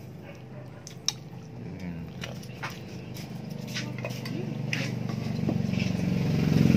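A fork clicks and scrapes against a plastic pot of instant noodles as they are eaten, with one sharper click about a second in. In the second half a motor vehicle engine, likely a motorcycle, grows steadily louder.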